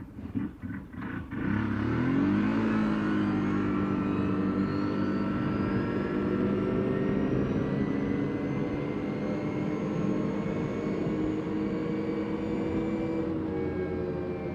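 CFMoto CForce 800 ATV's V-twin engine chugging unevenly at low speed, then revving up quickly about two seconds in and holding a steady cruising speed.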